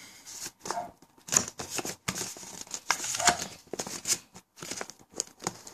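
Scissors snipping at the wrapping of a phone box, with crinkling and rustling as the packaging is handled: a run of short, irregular snips and rustles.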